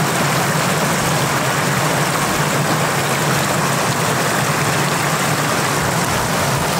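Shallow floodwater rushing steadily and loudly, a continuous even wash of moving water.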